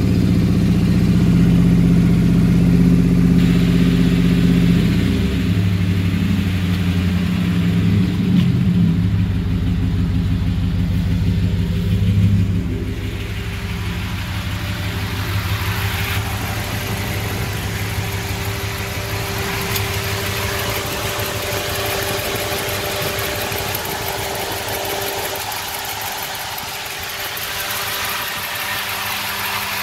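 Ram 1500's 5.7 Hemi V8 running at raised revs, then dropping back to a steady idle about twelve seconds in. It carries the tick that the owner takes for a bad lifter beating on the camshaft.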